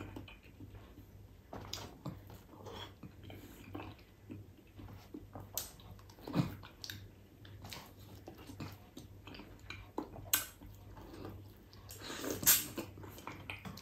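Close mouth sounds of a person biting and chewing ripe mango flesh off the skin: scattered smacks and clicks, with a sharper click about ten seconds in and a louder cluster near the end.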